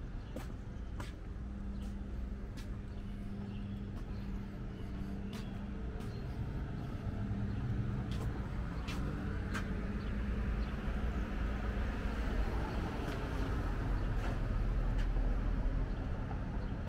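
Street traffic: a vehicle engine running steadily with a low hum, growing louder through the second half as a vehicle comes by, with scattered light clicks of footsteps on the pavement.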